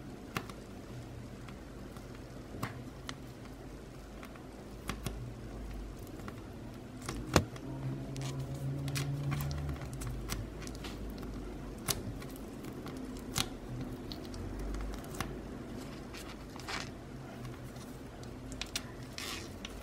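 Hands kneading and pulling a cornstarch-and-stress-ball slime, giving scattered sticky clicks and pops over a low steady rumble. The loudest pop comes about seven seconds in.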